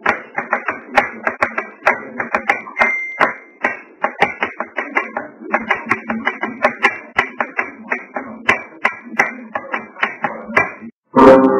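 Quick, irregular sharp claps or taps, several a second, over pitched musical tones. They cut off suddenly shortly before the end, and a sharp hit gives way to a sustained ringing tone.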